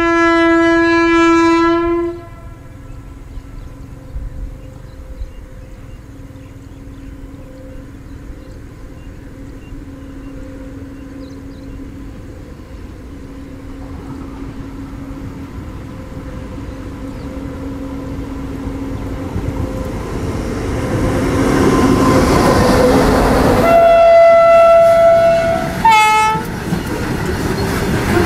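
WAG-9 electric locomotive hauling a BCNA freight train: a long, lower-pitched horn blast, then the noise of the approaching train building up. Near the end come a higher-pitched horn blast and a short one that bends in pitch, and then the covered wagons roll past with wheel clatter.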